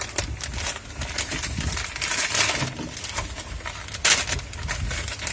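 Clicks, light rattles and rustling from hands handling a new HT ignition cable, with a sharp click just after four seconds. Wind rumbles on the microphone underneath.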